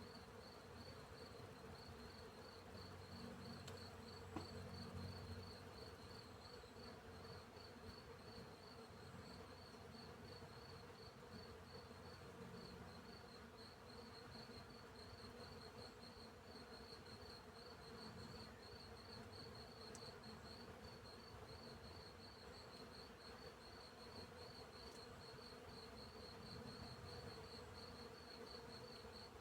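Faint field insect chorus: crickets chirp in a steady run of fast, even pulses over the low hum of bees buzzing, with a bee's buzz swelling close by for a few seconds early on.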